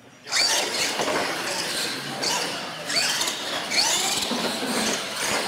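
Electric RC monster trucks launching off the start and racing down a straight. The motors whine, starting suddenly and sweeping up in pitch several times as the trucks accelerate.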